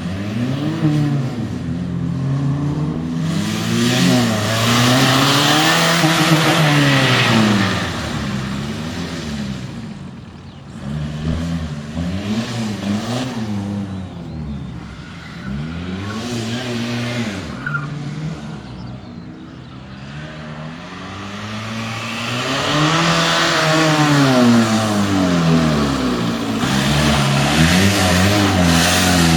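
A Mk1 VW Golf's 1.9 TDI four-cylinder turbodiesel being driven hard, its revs climbing and falling again and again as it accelerates and lifts. It is loudest and highest-revving twice, around a few seconds in and again in the last third.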